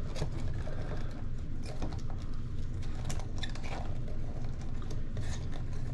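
Hands working a foam sidewall insert into a soft rubber RC crawler tire: scattered soft rubbing, squeaks and small clicks over a steady low hum.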